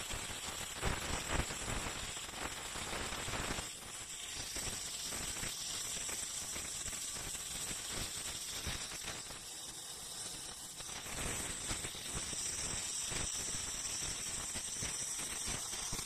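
Arc of a CNC-driven MIG welding torch laying a bead on steel plate, with a steady, dense crackle and a spatter of sparks.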